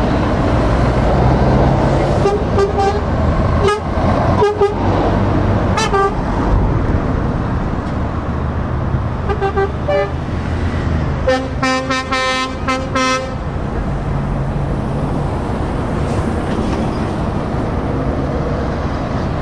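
Heavy trucks running past in a convoy, with air horns tooting: several short blasts in the first six seconds and again near ten seconds, then a longer run of rapid toots about eleven to thirteen seconds in.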